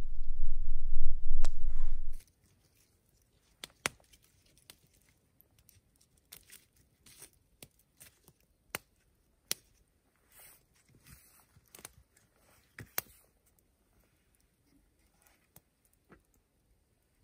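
A loud low rumble for about the first two seconds, cutting off suddenly. Then a wood campfire crackles with sparse, sharp pops and snaps, roughly one a second.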